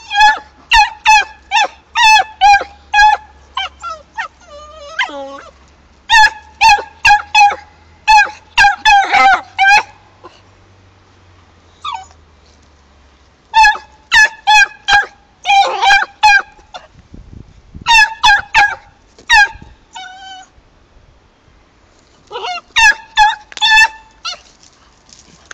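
Young beagle barking at a cat in loud volleys of rapid, high-pitched yapping barks, several a second, with short pauses between volleys and a falling whine about five seconds in.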